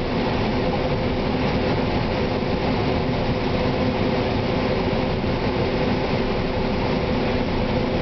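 1993 John Deere 9500 combine harvesting corn, heard from inside the cab: a steady, loud drone of the engine and threshing machinery with a constant hum.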